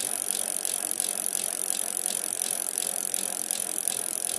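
A crowd of road bicycles rolling slowly, with freewheel hubs clicking in a rapid, regular ticking over a steady hiss.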